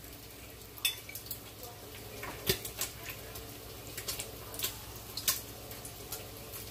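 Bacon frying in an electric multi-cooker: irregular sharp pops and ticks, roughly one a second, over a faint steady hum.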